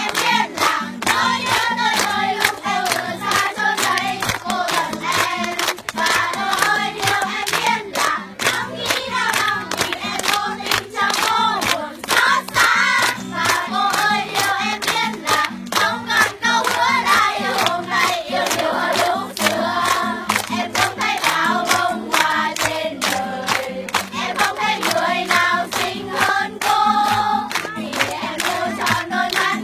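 A group of young people singing a song together in chorus, with rhythmic hand clapping in time and an acoustic guitar accompanying.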